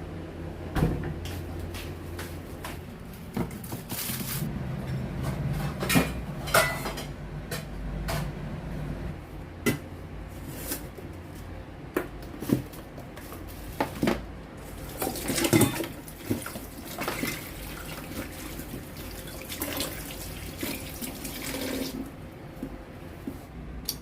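Kitchen tap running into a sink on and off, with scattered sharp knocks and clatter of kitchenware handled at the sink.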